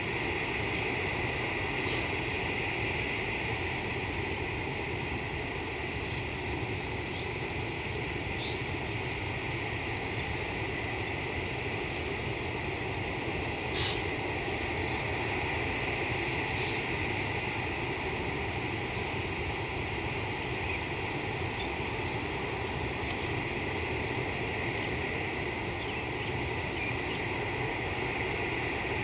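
Steady outdoor ambience: a continuous high-pitched chorus over a low rumble, with a few faint brief chirps.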